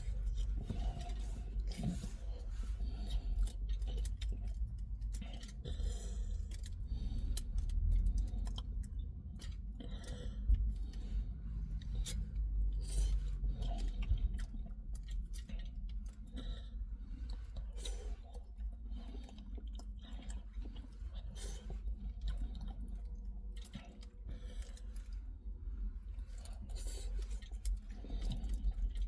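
A person chewing and eating a doner kebab close to the microphone, with many scattered short clicks and crinkles throughout.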